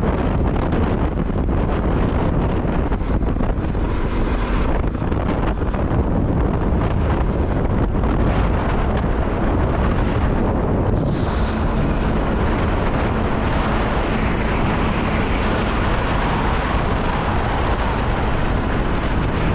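Wind rushing steadily over the microphone of a moving vehicle, with the vehicle's road and engine noise underneath.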